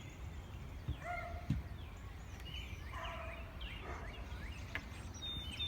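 Birds calling outdoors: scattered short calls over a steady low background rumble, with a brief thin high tone near the end.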